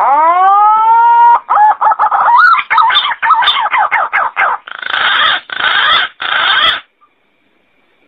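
Green pigeon (punai) calling: a long rising whistle, then a fast run of wavering whistled notes, ending in three harsh, rasping notes before it stops about seven seconds in.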